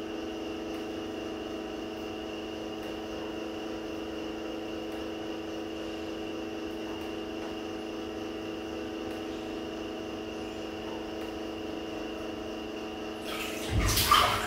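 A steady electric motor hum with several fixed tones. Near the end, bath water sloshes and splashes loudly as a person turns in the tub.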